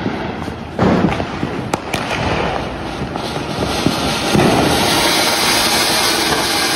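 Colour Koti anar (flower pot firework) spraying sparks with a steady rushing hiss that grows louder about four seconds in. There are a couple of sharp cracks about two seconds in. It is a short burn for a large anar.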